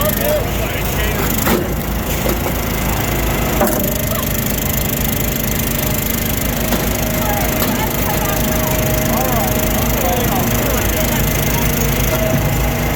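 Firewood splitting machinery running steadily, with wood cracking and splintering as logs are split.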